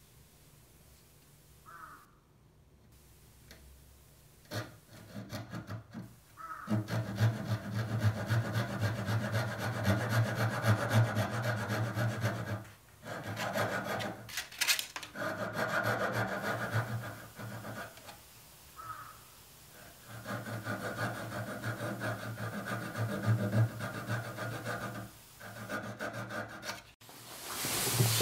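Flush-cut saw trimming a walnut-and-ebony bench dog flush with the benchtop: runs of quick back-and-forth saw strokes with brief pauses, starting a few seconds in.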